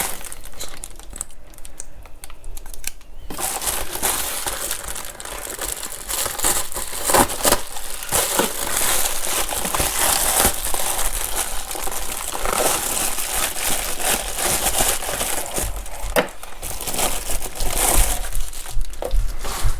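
A white shipping package being handled and opened, its packaging crinkling and crackling in a dense run of rustles, with a short lull a couple of seconds in.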